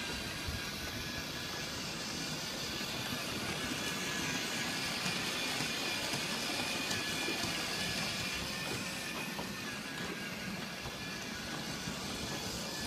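G scale model train running on its track: a steady rolling noise from the cars' wheels on the rails.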